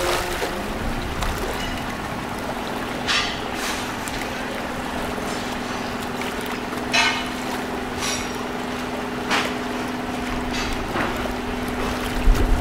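A boat's engine hums steadily, rising slightly in pitch in the first second, over water and wind noise, with a few short sharp splashy sounds.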